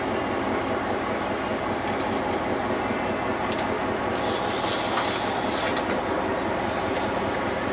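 Boat engine running steadily under way, with water and wind noise; a louder hiss rises about four seconds in and fades after a second or so.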